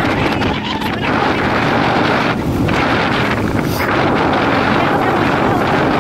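Steady, loud rush of wind buffeting the microphone on a moving scooter, with road and engine noise mixed in beneath it.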